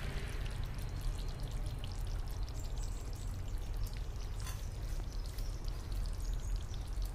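Chicken curry simmering in a steel kadhai, with soft bubbling and small pops over a steady low hum.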